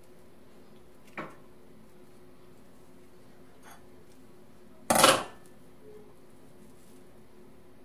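Metal kitchen scissors clattering down onto a ceramic plate about five seconds in, after a lighter click about a second in.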